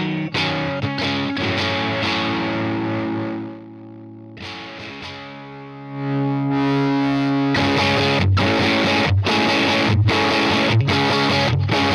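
Electric guitar played through an EarthQuaker Devices Bit Commander octave synth pedal, giving thick, fuzzy synth-like notes. Held notes give way to a quieter passage about four seconds in, and from about seven and a half seconds a riff is chopped into even, repeated stabs.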